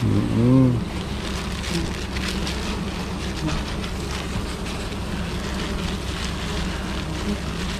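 A swarm of disturbed wild honey bees buzzing around their opened nest as a steady drone, with faint rustling and clicks from the comb being handled. A short voice sound comes just under a second in.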